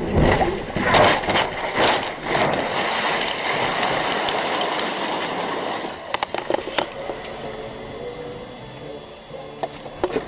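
A vehicle crashing, heard from its own dashcam: several loud impacts in the first couple of seconds, then a long rushing scrape as it slides off the road through dirt and debris, then a clatter of loose pieces about six seconds in, dying down to scattered ticks.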